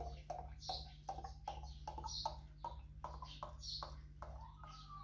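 Olive oil glugging out of a bottle as it is poured over garlic cloves, a steady run of about four glugs a second.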